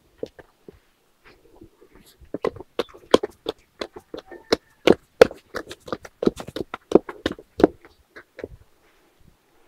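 Wooden paddle beating and turning thick konkonte (cassava flour dough) in an aluminium pot. It makes a quick irregular run of sharp knocks and slaps, about four a second, which starts about two seconds in and stops near the end.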